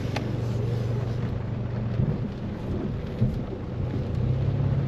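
Ford Mustang's engine running at a steady low drone under the hiss of rain and wet-road noise, with one sharp click just after the start.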